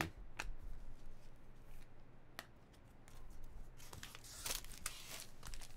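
Trading cards handled and set down with a few light clicks, then about four seconds in, the crinkle and crackle of a foil card-pack wrapper being picked up and worked open.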